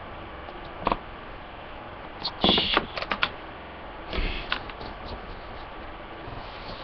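A few scattered clicks and short rustles over a steady faint hiss: a click about a second in, a brief rustle followed by several quick clicks a little later, and another rustle about four seconds in.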